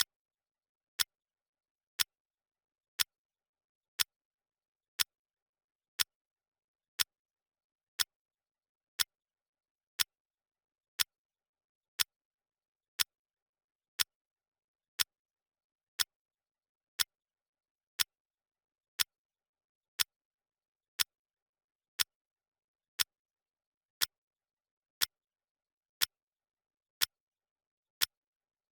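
Clock ticking sound effect: one short, crisp tick every second, evenly spaced, with complete silence between ticks.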